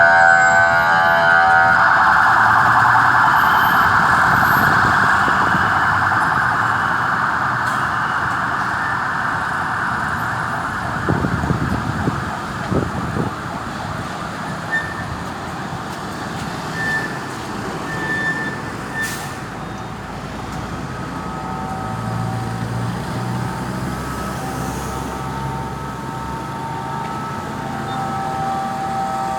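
Ambulance sirens sounding. They are loudest at the start and fade over the first ten seconds or so, with a few dull thumps around the middle. A steadier siren tone builds again in the last several seconds.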